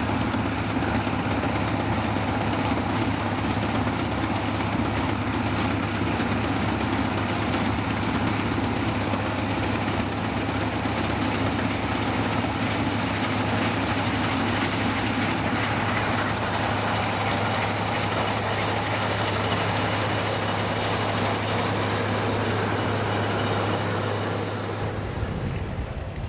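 Vintage Massey Ferguson combine harvester running steadily, its engine hum under the dense clatter of machinery. The sound drops and changes near the end.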